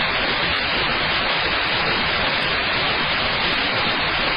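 Steady, loud static hiss, like white noise, with no other sound over it.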